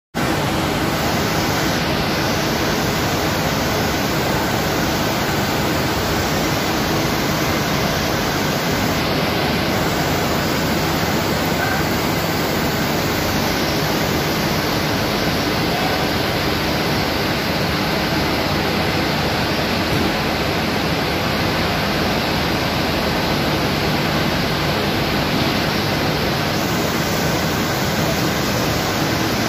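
Steady, dense din of cotton spinning-mill machinery: draw frames running, drafting sliver and coiling it into cans, with other machines in the hall behind.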